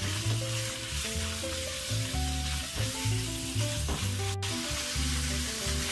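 Marinated chicken neck meat sizzling as it fries in oil in a wok, stirred with a silicone spatula. Background music with a steady bass line plays along.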